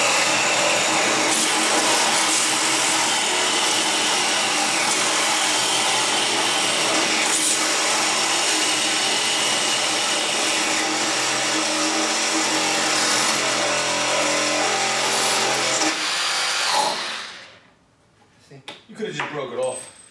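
Two compact one-handed cordless reciprocating saws, a Milwaukee M18 Hackzall and a Kobalt 24V, running at the same time as their blades cut protruding nails flush with a wooden board. Both saws stop abruptly about 17 seconds in, and a short stretch of a man's voice follows.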